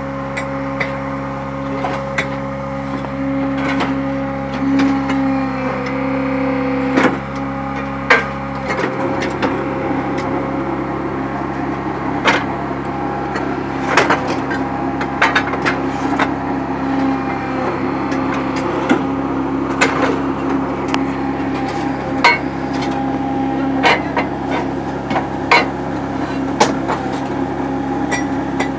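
Hydraulic fly ash brick machine running: a steady hum from its motor and hydraulic pump, with sharp metallic knocks every second or two. The hum shifts about nine seconds in.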